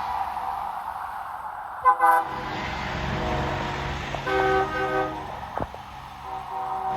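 Trucks in a passing parade honking their horns: a short loud blast about two seconds in, a longer two-part blast around the middle, and another starting near the end. A low truck engine rumble runs underneath.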